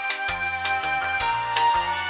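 Instrumental background music with a bass line and a steady beat, playing under a "technical difficulties" card.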